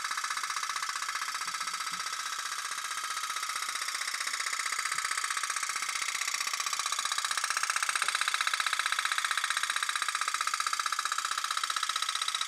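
Tin pop-pop (putt-putt) toy steam boat running, its engine giving a steady, rapid pulsing buzz. It gets a little louder in the middle as the boat passes close.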